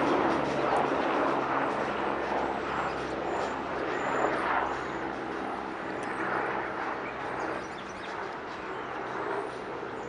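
Amtrak passenger train rolling away along the tracks: a steady rumble of wheels on rail that slowly fades as the train recedes.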